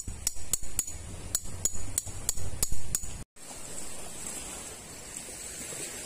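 A metal peg hammer striking a metal tent peg about ten times, roughly three blows a second, each a sharp clink with a ringing edge, driving the peg in through a tent's corner strap. About three seconds in the hammering cuts off abruptly and gives way to a steady outdoor hiss.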